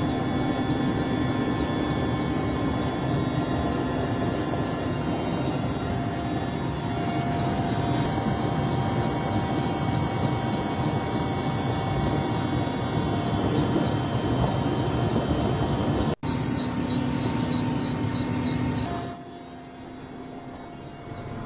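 Helicopter turbine and rotor noise, heard close up as if inside the cabin: a steady rushing noise with a high engine whine over it. It cuts out for an instant about three-quarters of the way through and turns quieter near the end.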